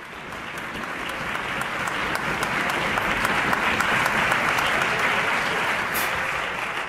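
Audience applauding in a concert hall, swelling over the first few seconds, then starting to die away near the end.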